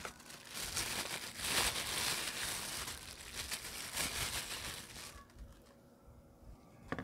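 Thin plastic packaging bag crinkling as it is handled and opened by hand, dying down about five seconds in, with a sharp click near the end.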